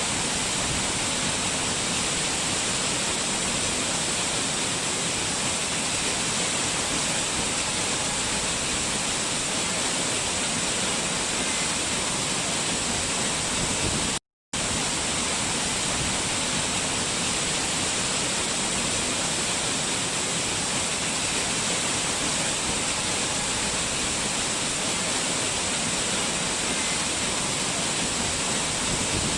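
A waterfall's falling water rushing steadily, dropping out to silence for a fraction of a second about halfway through.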